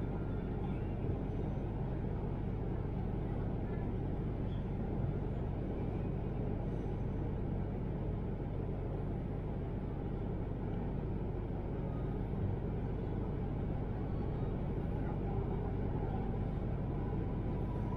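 Steady low rumble inside the passenger car of an electric intercity train running along the line.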